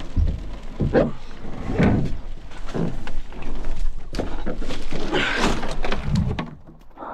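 Footsteps squelching through wet mud, about one heavy step a second, that stop near the end, with rain and wind noise on the microphone.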